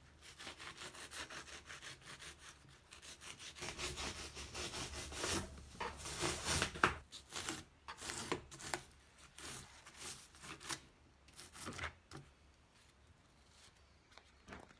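A small serrated hand saw cutting through expanding spray foam that fills a crack in a truck dashboard, in quick back-and-forth strokes. The strokes are loudest midway and trail off near the end.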